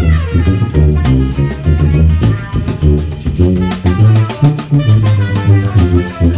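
Sousaphone playing a jazz-funk bass line of separate low notes, over a backing track with drum kit.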